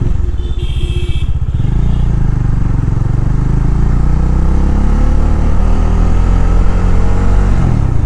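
Motorcycle engine pulling under acceleration, its note climbing steadily for several seconds, then dropping sharply near the end as at a gear change. A brief high-pitched tone sounds about a second in.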